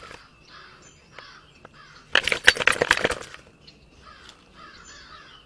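Crows cawing over and over, one short call about every half second. About two seconds in, a burst of rapid clattering knocks lasts about a second and is louder than the calls.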